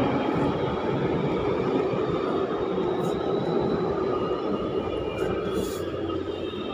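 Delhi Metro Green Line train pulling out of an elevated station, its steady running noise slowly fading as it moves away.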